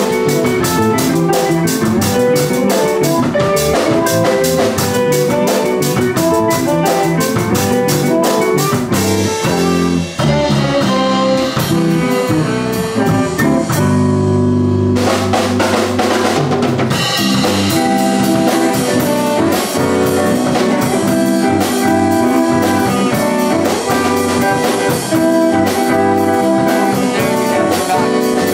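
Live quartet playing: saxophone over drums, with a steady beat of drum and cymbal strokes.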